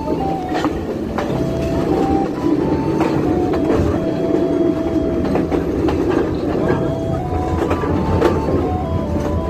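Passenger train running, heard from an open carriage window: a steady rumble with repeated clacks of the wheels over rail joints, and a thin high squeal that holds and jumps between a few pitches.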